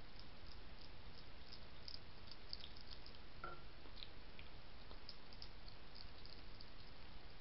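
European hedgehog crunching dry kitten biscuits from a bowl: many small, quick, irregular crunching clicks over the steady hiss of a trail camera's microphone.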